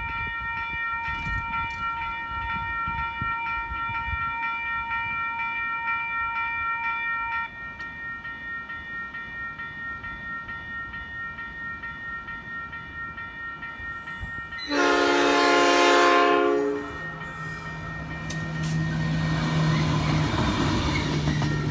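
An 82 class diesel-electric locomotive running light sounds its horn for about two seconds, then its engine hum and rolling noise grow as it passes the level crossing. Before the horn, the level crossing warning sounds as a set of steady tones, part of which stops about seven seconds in.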